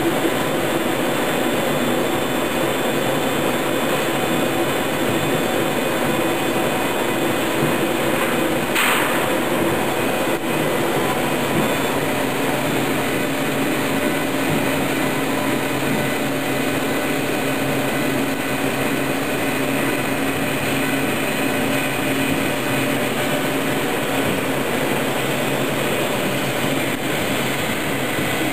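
Kern 150-watt metal-cutting laser at work cutting 18-gauge mild steel: a steady machine drone and hiss, with one brief sharp noise about nine seconds in.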